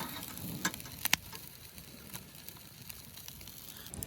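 Campfire crackling, with a few sharp pops about a second in over a low steady hiss.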